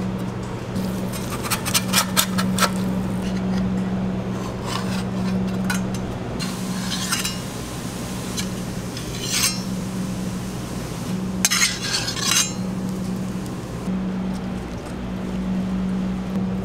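Metal tongs and utensils clinking and scraping in several short runs as burger toppings are set in place, over the steady low hum of kitchen equipment.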